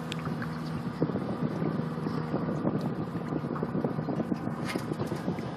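Water slapping and splashing against a boat's hull, with wind on the microphone. A steady low hum cuts off about a second in.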